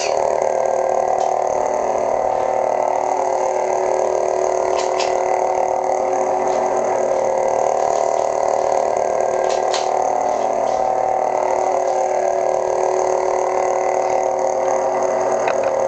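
Lightsaber's Petit Crouton 2.0 sound board playing its steady idle hum through the hilt's speaker, with a few faint ticks scattered through it.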